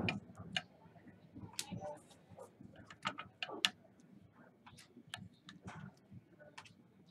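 Trading cards being handled and set one after another into a clear plastic display stand: irregular light clicks and snaps of card against plastic.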